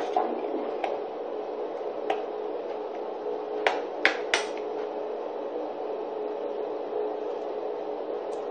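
A few sharp clicks and taps of small hard objects being handled, the loudest a quick cluster of three about three and a half to four and a half seconds in, over a steady low hum.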